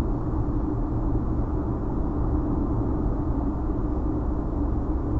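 Steady road and engine rumble inside a moving car's cabin, picked up by the dash cam's microphone, with no sudden events.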